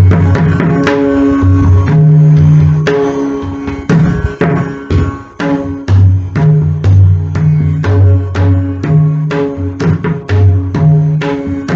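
Pakhawaj playing a Chautal composition in a 12-beat cycle: crisp strokes on the treble head over deep, booming bass-head tones. The strokes come closer together near the end, with steady sustained tones held beneath them.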